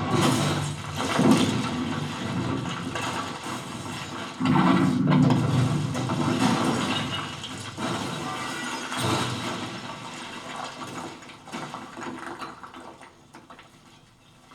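Film soundtrack sound effects played through the Philips MLED920 TV's built-in speakers: a run of loud hits and rushing noise over a low hum, fading out near the end.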